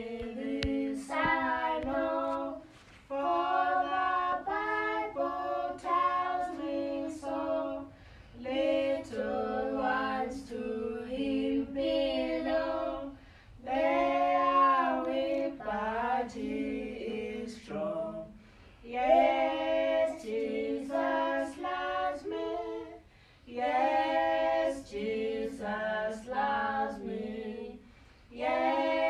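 A woman and children singing a song together without accompaniment, in phrases of a few seconds with short breaks between them.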